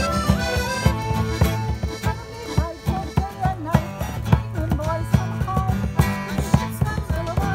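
A live acoustic folk group playing a song together: strummed acoustic guitars keep a steady beat under the sustained reedy notes of a piano accordion.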